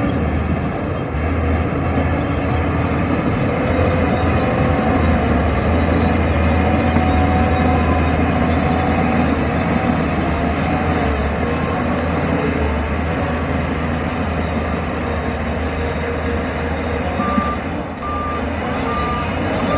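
Bulldozer's diesel engine working hard with a steady low rumble. A reversing alarm beeps a few times near the end.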